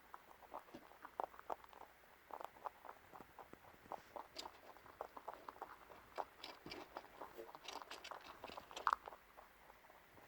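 A rabbit chewing food: a quick, irregular run of small crunching clicks, several a second, with the loudest crunch about nine seconds in.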